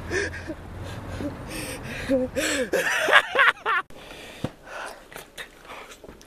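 A person's wordless vocal sounds: gasps and short exclamations that rise and fall in pitch, about two to three and a half seconds in, then a quieter stretch with a few soft clicks.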